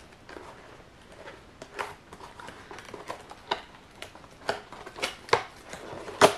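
Taped-shut packaging being opened by hand: irregular crinkling, peeling and snapping with sharp clicks, the loudest near the end.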